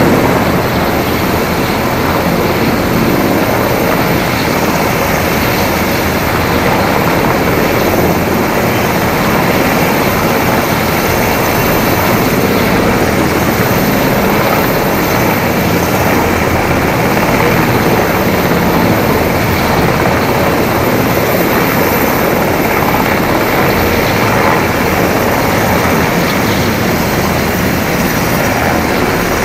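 Army Black Hawk twin-turbine helicopters running loud and steady at close range, with rotor and engine noise filling the air without letup.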